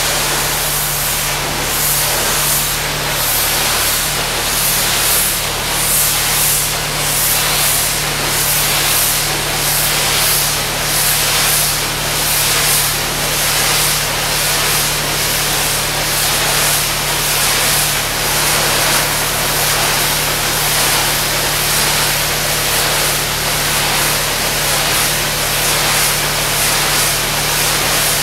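Pressure washer's high-pressure water jet spraying, a steady loud hiss that swells and fades about once a second, with the machine's motor humming steadily underneath.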